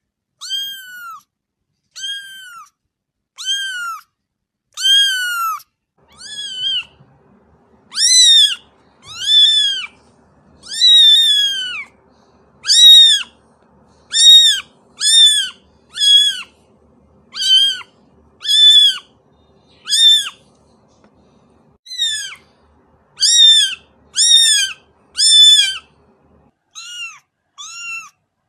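A kitten meowing over and over, high-pitched, roughly one meow a second.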